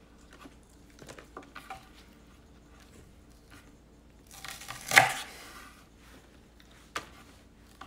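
A knife cutting through a bunch of spring onions on a bamboo cutting board: one cut about five seconds in, the loudest sound, with faint taps of handling before it and a short sharp tap near the end.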